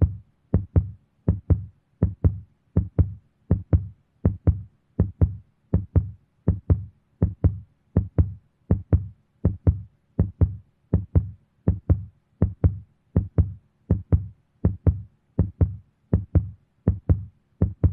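Heartbeat sound effect: a steady lub-dub double thump repeating about 80 times a minute, each beat a pair of deep thuds.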